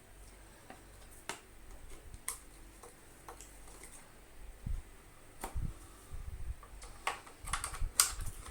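Scattered clicks and light knocks of a screwdriver working screws out of a Hoover Junior 119 vacuum cleaner's casing and the parts being handled, with a cluster of sharper clicks near the end.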